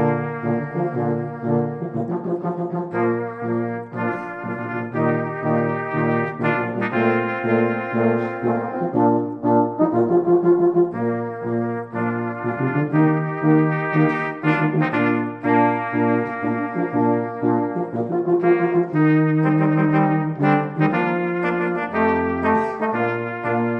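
A small brass group of cornets and a euphonium plays a simple march tune in parts, held notes changing in a steady beat over a low bass line.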